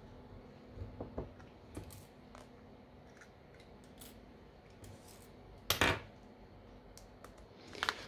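Small clicks and taps of a smartphone's SIM card tray being pushed out with an ejector tool and the small metal tray and tools being handled on a work mat, with one louder sharp clack past the middle.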